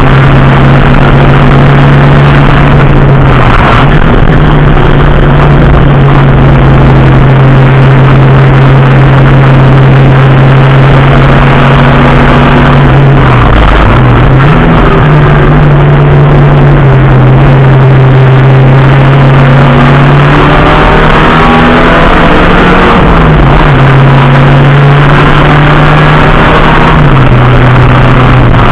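Racing engine heard from an onboard camera, running hard at a high, steady note that is very loud. Its pitch dips briefly and comes back a few times, at about 4, 14, 23 and 28 seconds.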